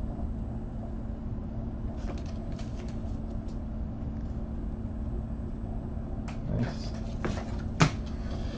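Trading cards being handled and sorted by hand: light rustling and soft taps, then a few sharper clicks as cards are set down on the table, the loudest a single sharp click near the end. A steady low room hum runs underneath.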